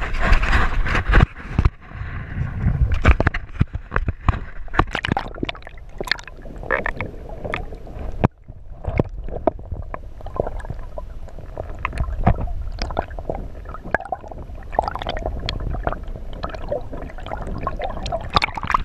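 Water sloshing and gurgling around an action camera dipped underwater, with many sharp knocks and clicks against its housing. The rush of water is loudest in the first second or so, and the sound cuts out briefly about eight seconds in.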